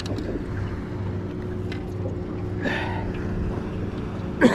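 Boat motor humming steadily, with a short loud burst right at the end.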